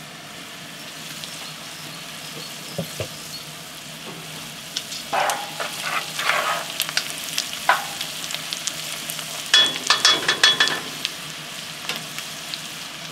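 Diced onions sizzling softly in lard in a cast-iron Dutch oven as they sweat. From about five seconds in, a wooden spoon scrapes and stirs through them, loudest around ten seconds in.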